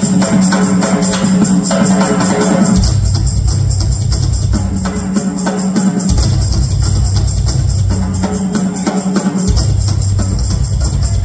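Live rock drum solo on a large drum kit: rapid, continuous rolls that switch back and forth between a higher and a lower low-pitched drum about every one and a half to two seconds, over a steady wash of cymbals.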